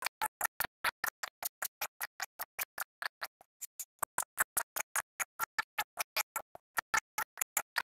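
Rapid, evenly spaced clicking, about nine sharp clicks a second with silence between them, briefly fainter about halfway through.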